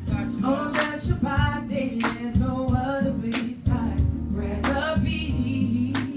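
Worship music: a voice singing a melody over a band with a regular drum beat and a steady bass line.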